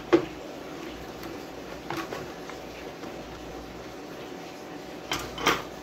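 Short handling clicks and knocks as an amplifier circuit board with its metal heatsink is lifted and turned over on the sheet-metal chassis: a sharp one right at the start, one about two seconds in, and two close together near the end, over a steady low background noise.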